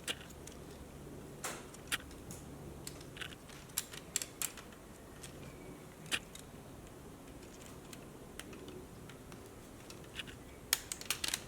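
Lego Technic plastic parts clicking and tapping as the excavator's gear section is pressed back together: scattered sharp clicks, with a quick cluster near the end.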